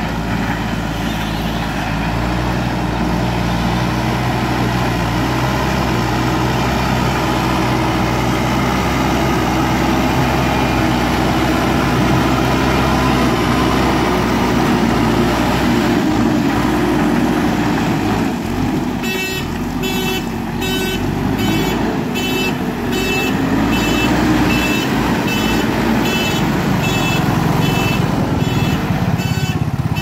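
JCB backhoe loader's diesel engine running and revving unevenly as it works. From about two-thirds of the way in, a steady electronic beep repeats about twice a second, typical of the machine's reversing alarm.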